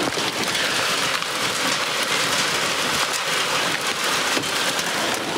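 Heavy rain mixed with hail pelting down, a steady dense hiss full of small hits, heard through an open car door.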